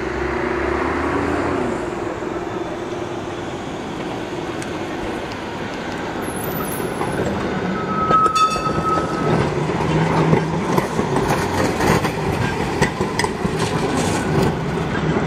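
Tram running on rails: a motor hum with a shifting pitch at the start, a short high wheel squeal about eight seconds in, then wheels clicking over rail joints as it grows louder.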